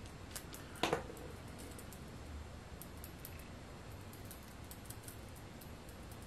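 Faint, scattered small clicks and taps of makeup being handled: a brush and eyeshadow palette worked by hand. One louder short tap comes about a second in.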